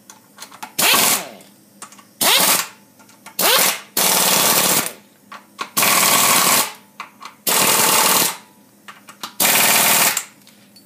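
A pneumatic wrench runs in about seven short bursts, each under a second with brief pauses between, as it tightens the bolts of a gearbox cover on a small Honda engine. Each burst is a loud, fast rattle.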